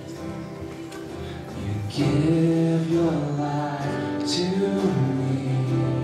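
Live worship band playing, with guitars, keyboard and drums under held chords; about two seconds in the level rises as a singer's voice comes in and carries the melody.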